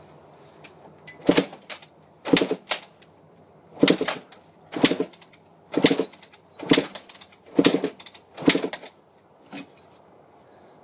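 A 250cc two-stroke Kawasaki dirt bike being kicked over about nine times, roughly once a second, each kick turning the engine over in a short burst. It never fires: the bike won't start, which the owner puts down to it not getting fuel.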